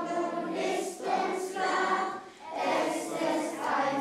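A group of young children singing a song together as a choir, with a short break between phrases a little past halfway.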